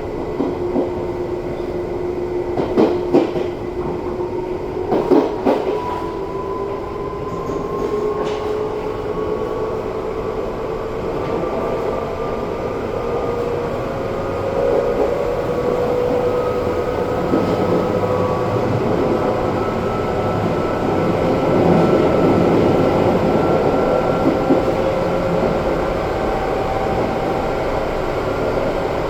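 Izukyu 2100-series electric train under way: the whine of its Toyo-made drive rises slowly in pitch as the train gathers speed and levels off near the end, over steady running noise. A few rail-joint clacks come in the first six seconds.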